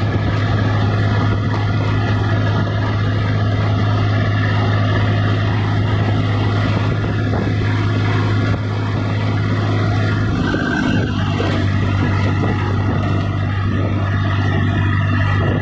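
Eicher 480 tractor's diesel engine running steadily at road speed, heard close to its vertical exhaust stack: a loud, even drone. The engine note shifts briefly about two-thirds of the way through, then settles again.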